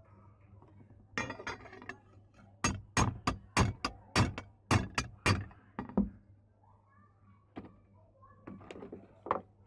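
A series of sharp knocks: about ten quick strikes, roughly three a second, after a short scraping sound. A few scattered knocks follow near the end.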